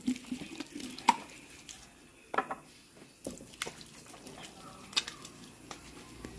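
Hands massaging coconut oil into a whole skinned goat carcass: soft wet squishes and slaps of palms on the oily meat, scattered about once a second.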